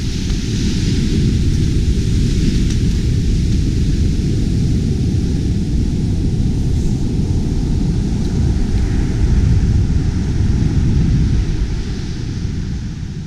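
Ocean surf breaking and foam washing up a sandy beach: a steady deep rushing noise that eases off near the end.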